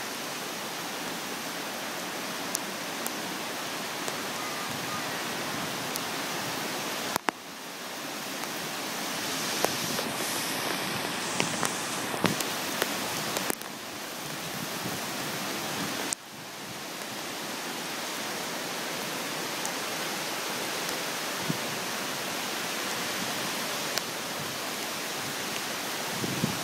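Heavy summer thunderstorm downpour: rain pouring as a dense, steady hiss, with scattered sharp ticks of drops striking close by. The hiss drops out briefly twice and comes back.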